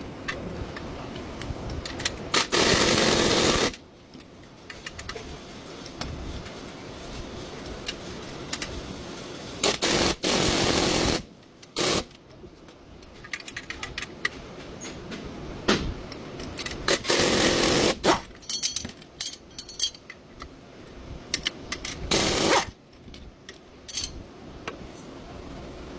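A power tool run in four short bursts of about a second each, with metal clinks and tool handling between them.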